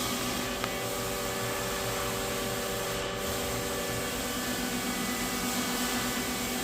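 CNC machine cutting steel: a steady running hiss with several steady tones held underneath it.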